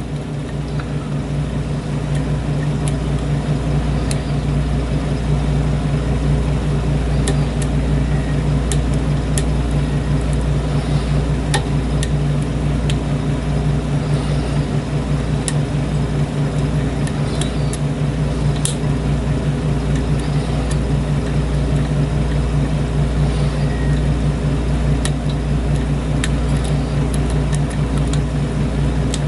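A steady mechanical hum throughout, with scattered faint metallic clicks and ticks from a hook pick and tension tool working the pins of a challenge lock cylinder.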